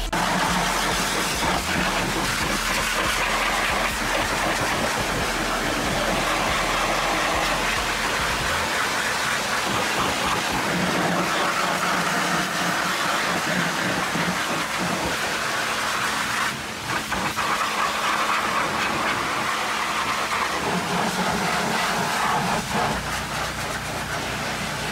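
High-pressure washer jet blasting mud off a truck's axle and tyres: a steady loud hiss and spatter of water, broken briefly about two-thirds of the way through.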